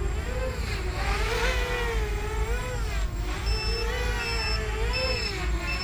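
Eachine EC250 racing quadcopter's brushless motors and 5-inch propellers buzzing in flight, the pitch wavering up and down with throttle. About halfway in, a low-battery alarm starts sounding short beeps, about three every two seconds, a sign that the flight battery is running down.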